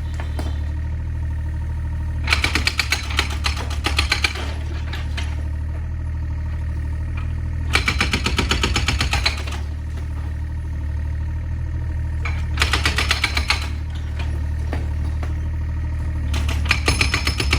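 Excavator's diesel engine running steadily, with four bursts of rapid clattering as the machine works at demolishing a house.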